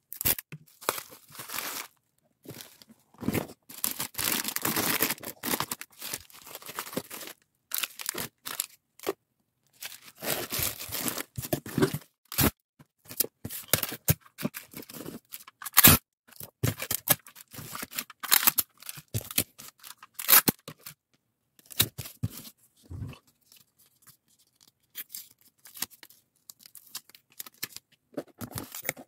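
Hand-packing a parcel: bubble wrap and plastic crinkling, packing tape pulled off and torn, and a cardboard box handled and pressed down, in irregular long tearing stretches with a few sharp taps.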